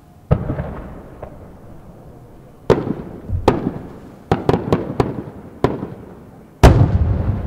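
Large aerial firework shells (12-inch / 300 mm senrin shells) going off: about nine sharp booms, each with a long echoing rumble. A quick run of them comes in the middle, and the loudest is near the end.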